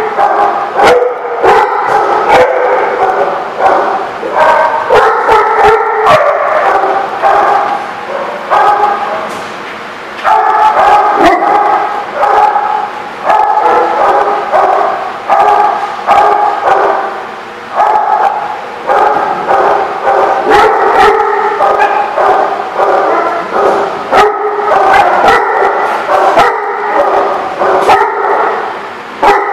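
Many dogs barking and yipping together almost without pause, with a short lull about ten seconds in.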